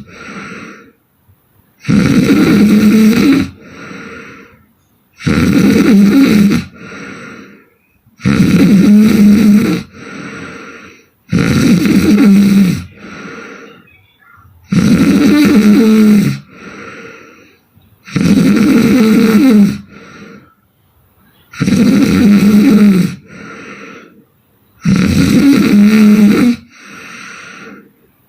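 A sleeping woman snoring hard: eight loud, rasping snores come at an even pace, about one every three and a half seconds. Each is followed by a fainter, shorter breath sound.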